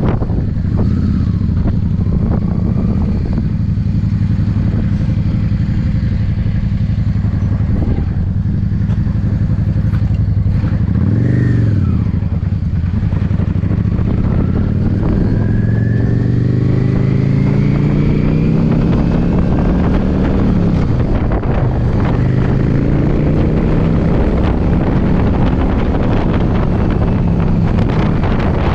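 Yamaha V-Star V-twin engine running on the road, with wind buffeting the microphone. About eleven seconds in the engine note briefly rises and falls, then from about fifteen seconds it climbs steadily in pitch as the bike accelerates.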